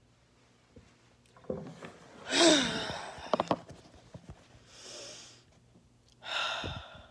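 A phone being picked up and handled close to its microphone, with rubbing and a few quick clicks, and three short breathy noises from the person holding it, the loudest about two and a half seconds in.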